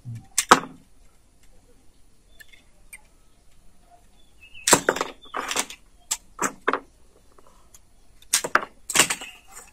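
Intermittent handling noises: short rustles and clicks of grafting tools and fig cuttings being picked up and moved on the work table, coming in a few clusters about half a second in, around the middle and near the end.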